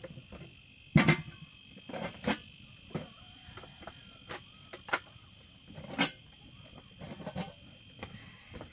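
Metal cooking pots and a kettle knocking and clinking as they are handled, about a dozen sharp knocks spread through, the loudest about a second in. A steady high insect chirring runs underneath.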